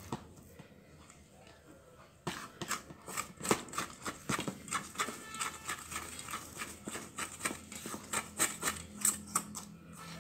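Soft bread dough being worked and scraped around a stainless steel mixing bowl with a silicone spatula: a quick, uneven run of sticky clicks and scrapes that starts about two seconds in.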